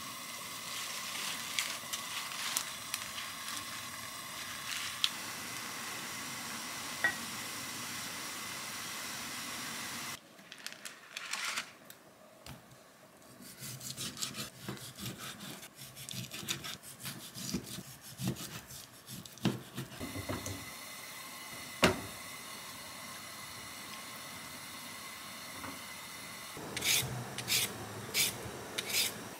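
Water in a pot hissing steadily on a gas hob while greens blanch; then a chef's knife slicing raw pork on a wooden cutting board in irregular knocks; near the end a Y-peeler scraping the skin off a potato in quick repeated strokes.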